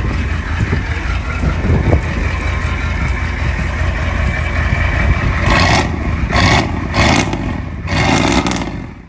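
Truck engine running with a steady deep rumble, with several short bursts of louder noise in the second half.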